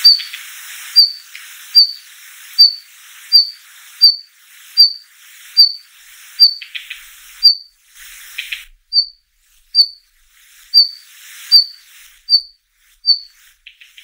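Male red-flanked bluetail giving its winter call: a thin high 'hi' note repeated about every three-quarters of a second, mixed with harsh rasping 'ga-ga-ga' notes.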